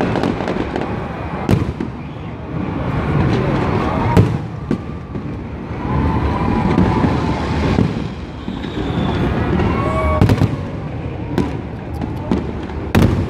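Fireworks display going off continuously: a rolling mix of booms and crackle broken by several sharp bangs, the loudest about four seconds in and again around ten seconds.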